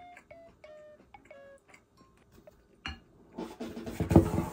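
Light background music of short, bright notes. About three seconds in, the ceramic bowl and spoon are handled on the table, a noisy scraping and knocking that is the loudest sound.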